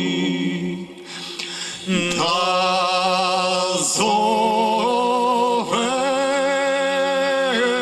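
Two men's voices singing unaccompanied in a slow chant, holding long notes with vibrato, with a brief dip about a second in before the next phrase starts.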